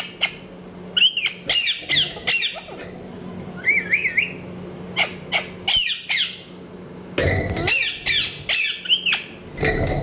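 Parrot squawking in a string of short, sharp calls, about one every half second, with a wavering whistled call about four seconds in. A low rumbling noise sits under the calls for the last few seconds.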